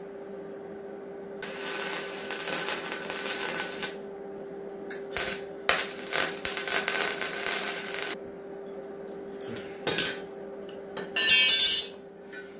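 MIG welder welding thin steel pieces together, the arc crackling in bursts: one of about two and a half seconds, a brief one around five seconds in, then another of about two and a half seconds, over a steady hum. Near the end comes a short, loud metallic clatter.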